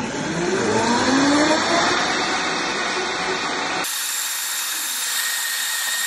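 Countertop blender motor running loud, its pitch rising as it spins up over the first two seconds. About four seconds in it abruptly shifts to a higher, thinner whine. It is emulsifying egg yolk and gazpacho as olive oil is poured in through the lid, as for a mayonnaise.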